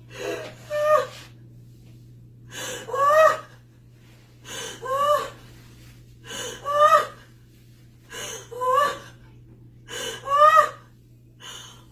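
A woman gasping and crying out in a steady rhythm: six pairs of short, high-pitched breathy cries about every two seconds, the second of each pair louder, its pitch rising and then falling.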